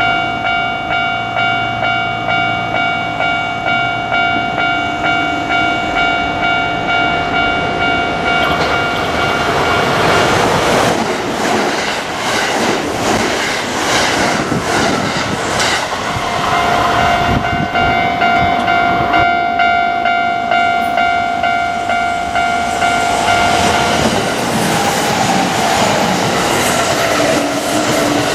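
Japanese level-crossing warning bell ringing a rapid, even, repeated ding, while an electric Kintetsu Osaka Line train passes over the crossing from about eight seconds in with its wheels clattering over the rail joints. The bell stands out alone again in the middle, and a second train's rumble rises near the end.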